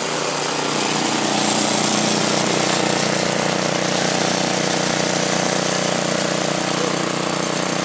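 Walk-behind lawn mower engine running steadily at close range, getting slightly louder over the first second or so.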